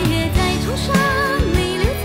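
Background music: a melody with wavering held notes over a steady beat.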